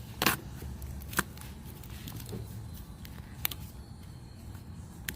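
Handling of plastic door-trim parts: four sharp clicks and taps spread over a few seconds, over a low steady hum.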